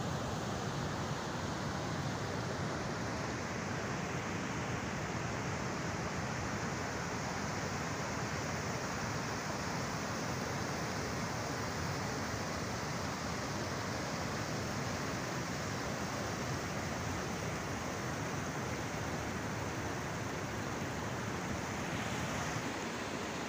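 The swollen Kunhar River running fast and muddy over boulders: a steady rush of turbulent water.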